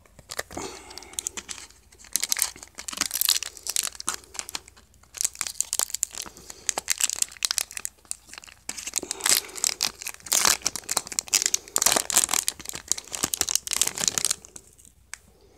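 Plastic wrappers of Star Trek trading card booster packs crinkling and tearing open as packs are handled, in dense runs of crackling with short pauses between them, falling quiet about a second before the end.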